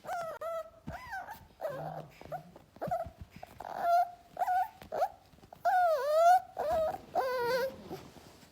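A dog whining in a string of short, pitched cries, about two a second, with a few longer, drawn-out whines in the second half.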